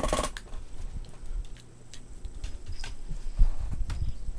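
Boston Terrier puppies scuffling in play: scattered taps and soft thumps, with a short squeal right at the start and a heavier thump about three and a half seconds in.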